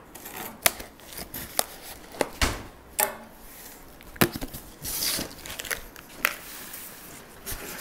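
A cardboard shipping box being cut open with a small knife: the blade snapping through packing tape and cardboard in a string of sharp clicks, with rustling cardboard as the end flaps are pulled open.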